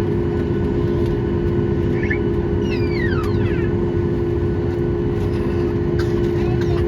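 Steady engine drone with a constant hum. A few brief, high, falling chirps come about two to three seconds in.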